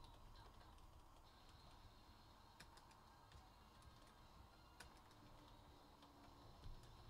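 Near silence: room tone with faint, scattered clicks of typing on a computer keyboard, a few sharper clicks just before three seconds in and near five seconds.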